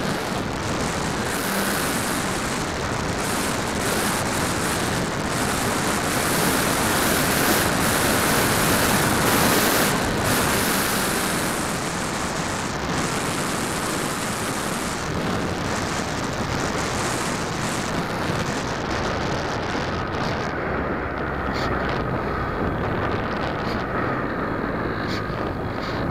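E-flite Apprentice S 15e electric RC trainer plane in flight, heard from a camera mounted on the plane: wind rushing over the microphone, with the whine of its electric motor and propeller underneath. The rush swells around the middle, and about two-thirds of the way through the hiss thins and a steady whine stands out.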